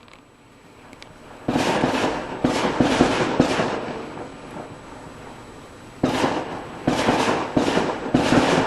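Fireworks going off: about eight sharp bangs in two clusters, one starting about a second and a half in and the other about six seconds in, each bang trailing off in an echo.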